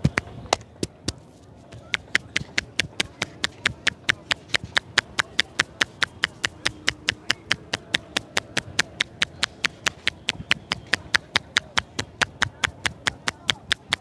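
Rapid, even tapping of a barber's palms, pressed together, striking the top of a man's head during a head massage. The taps come about five a second from about two seconds in, after a few scattered taps.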